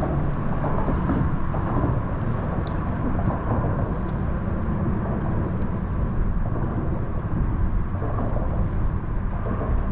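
Wind buffeting the microphone: a steady, unbroken low rumble.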